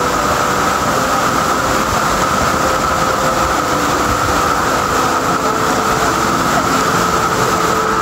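Loud, steady rush of fast-flowing river water at a waterfall, an unbroken hiss with no breaks.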